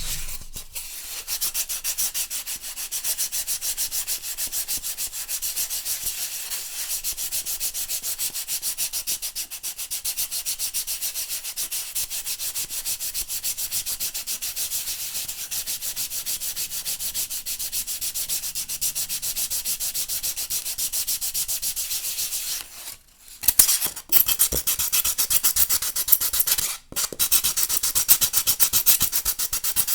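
Pink foam insulation board being rubbed, a fast, even, scratchy back-and-forth rubbing that stops briefly twice near the end.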